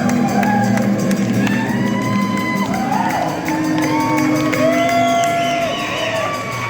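Live rock band playing, with the crowd cheering and whooping over the music.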